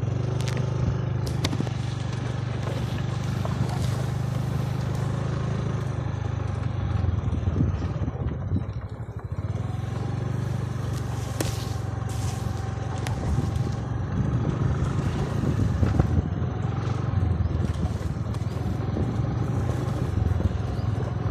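Motor scooter's small engine running steadily while the scooter is ridden over rough, overgrown ground, with knocks and rattles from the bumpy ride and brief scrapes of plants. The engine eases off for a moment about nine seconds in, then picks up again.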